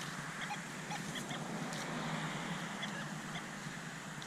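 Nokta Legend metal detector chattering with short, broken iron tones as it is swept over ground full of iron, over a steady rustling background.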